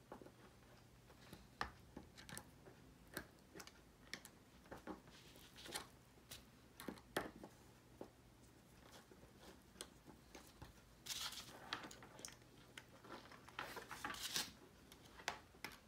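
Faint, scattered small clicks and knocks of a hand screwdriver driving a screw into the plastic tank-lever shifter knob of a Kawasaki Brute Force/Prairie ATV. Denser scraping and rattling comes twice near the end as the knob is wiggled on the lever so its flats line up with the cable clasp.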